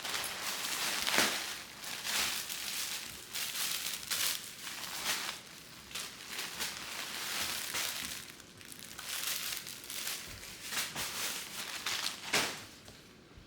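Plastic packaging crinkling and rustling in irregular handfuls as it is pulled and crumpled while unpacking, with a sharper crackle near the end.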